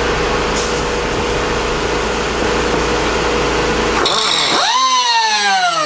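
A steady mechanical hum and hiss. About four seconds in, it gives way to a pneumatic cut-off wheel spinning up with a high rising whine. The pitch sags slightly as the wheel starts cutting through the head of a steel bolt.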